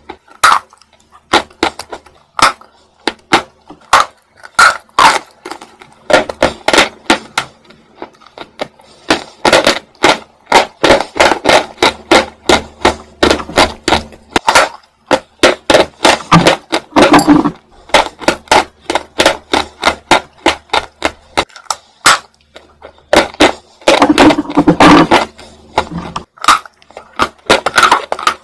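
Close-up biting and chewing of hard, dry lumps of edible chalk: dense runs of sharp, crisp crunches, several a second, with short pauses between bites.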